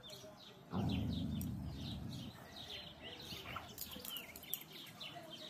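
Small birds chirping steadily in the background, with quick high chirps several times a second. About a second in, a low rumble starts suddenly and fades over about a second and a half; it is the loudest sound here.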